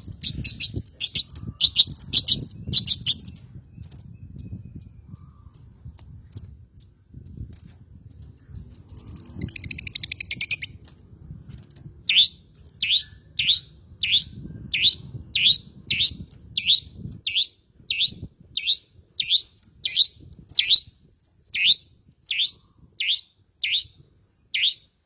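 Long-tailed shrike (cendet) song: rapid harsh chattering, then a string of thin high whistled notes and a quick trill. From about twelve seconds in comes a steady run of sharp downward-sweeping calls, about one and a half a second.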